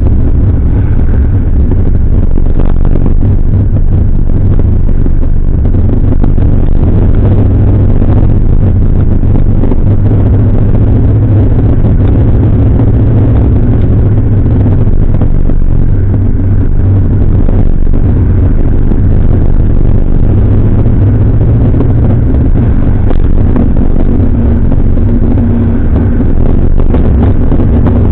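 Jowett Jupiter's flat-four engine running steadily as the car drives along at road speed, a loud continuous low drone.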